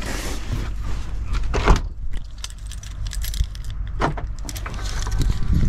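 Clattering and rustling as things are handled in a car's back seat and the car is got out of, with a few sharp knocks, the loudest about one and a half seconds in, over a low handling rumble.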